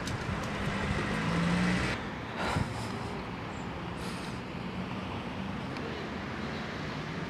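Steady urban road traffic noise, with a brief louder noise about two and a half seconds in.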